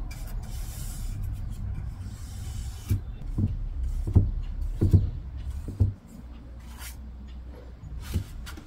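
Bristle paintbrush stroking paint onto an MDF board, a rubbing sound, with several low thumps about three to six seconds in.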